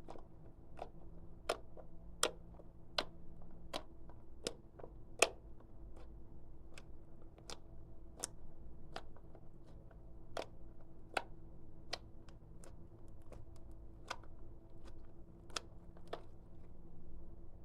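Clear slime being squeezed and pressed in a steady rhythm, giving sharp little clicking pops about every three-quarters of a second, some louder than others.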